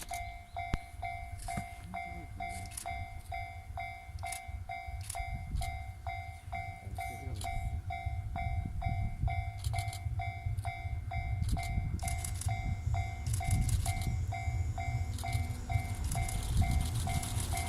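Japanese level-crossing warning bell ringing with a steady electronic two-tone ding, about two to three a second. Under it, the low rumble of an approaching locomotive-hauled train grows louder, and near the end a rising hiss of wheels and wagons sets in as the train reaches the crossing.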